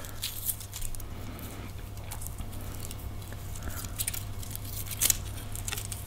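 Faint metallic clicks and light rattling of a steel feeler-gauge set being handled as its blades are fanned and one is picked out, with a sharper click about five seconds in, over a low steady hum.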